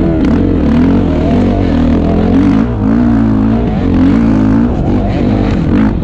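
Dirt bike engine running under load, its pitch rising and falling every second or so as the revs go up and down.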